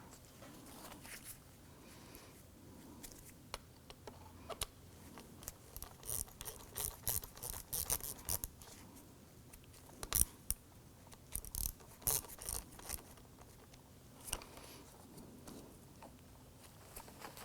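Light, scattered clicks, taps and rattles of small plastic and metal parts of a car's exterior door handle assembly being handled and worked with hand tools. The clicks come thickest in the middle stretch, with one sharper click about ten seconds in.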